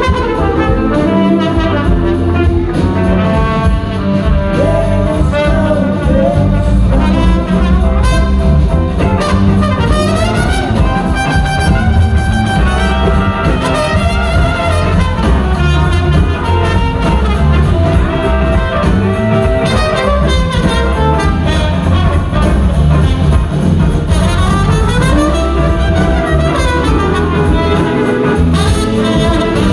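Live blues-rock band playing an instrumental stretch, with the horn section carrying the lead lines over drums and bass.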